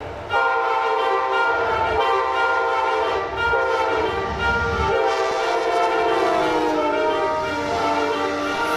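Diesel locomotive air horn sounding a chord in a run of long blasts, the last one sliding down in pitch as the train goes by, over the low rumble of the passing train.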